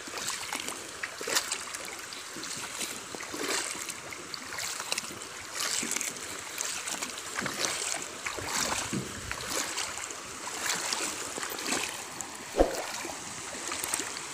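Shallow river water splashing and sloshing around wading legs, with short irregular splashes over a steady rush of flowing water. Near the end there is a single sharp knock.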